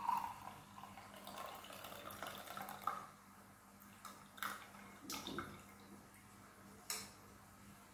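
Boiled herbal decoction poured from a steel pot through a plastic strainer into a glass tumbler: a faint trickle for about three seconds, then a few light clicks.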